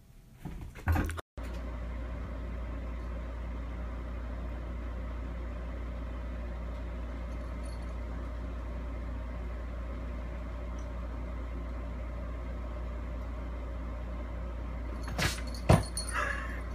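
A short knock about a second in, then a steady low hum with a hiss over it, like a room fan or air conditioner, with a few sharp clicks and a knock near the end.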